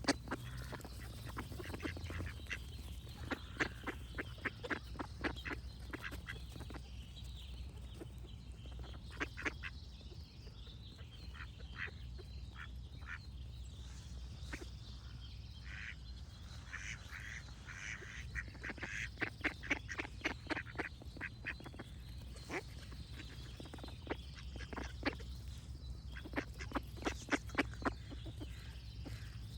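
Ducks quacking in quick runs of short calls all through, with birds singing faintly in the background.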